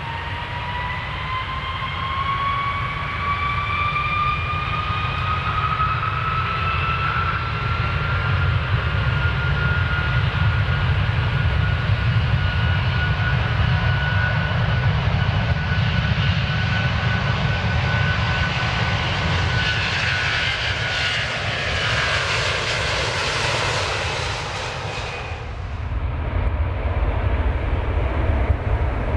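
Airplane engines at takeoff power: a whine rises in pitch over the first several seconds and then holds steady over a low rumble, while the hiss of the engines builds. About 25 seconds in the high hiss cuts off abruptly, leaving the low rumble.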